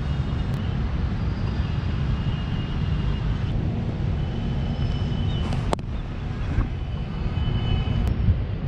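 Steady low wind rumble on an action camera's microphone. About six seconds in comes a single sharp crack of a cricket bat striking a hardball.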